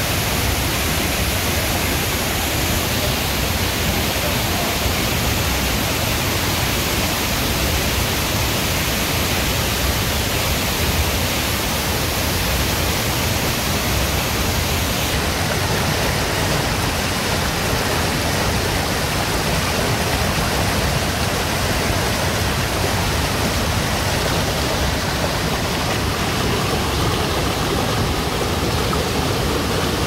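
Rushing mountain stream tumbling over rocks in white-water rapids, a loud steady roar of water.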